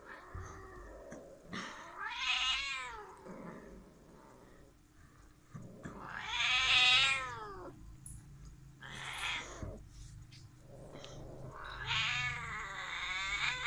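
Domestic cats caterwauling during mating: a series of long, wavering yowls, the loudest about seven seconds in.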